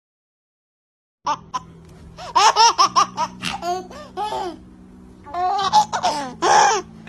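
Baby laughing in repeated high-pitched bursts of giggles and squeals, starting about a second in after a moment of silence, over a faint steady low hum.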